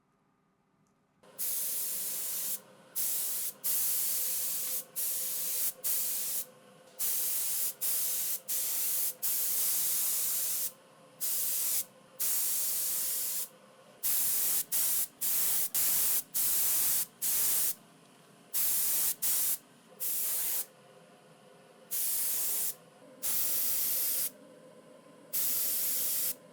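Paint being sprayed in many short bursts of hiss that start about a second in, each lasting from a fraction of a second to about two seconds, with brief pauses between them.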